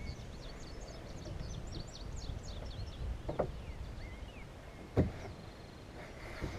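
Small birds chirping in quick series of short high calls during the first three seconds, over a low outdoor rumble. Two sharp knocks follow, about three and a half and five seconds in.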